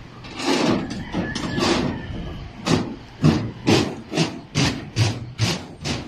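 Rhythmic rasping strokes of hand work on a steel rebar mat: a few longer strokes, then even ones about two a second.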